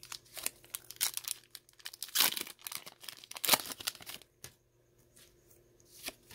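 Foil wrapper of a Pokémon Evolutions booster pack being torn open, crinkling and ripping in a run of sharp crackles for about four seconds, then a few faint clicks.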